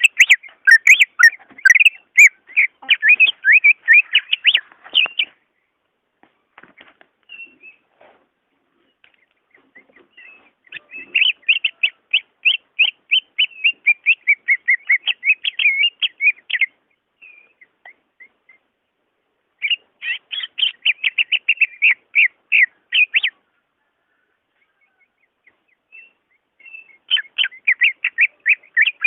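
Cucak ijo (green leafbird) singing in phrases of fast, sharp chirping notes, each run a few seconds long. Brief pauses separate the phrases, four in all.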